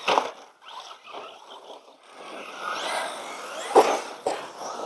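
Electric RC basher car's motor and tyres on a dirt track, building as it accelerates toward the jumps, with two sharp knocks about four seconds in.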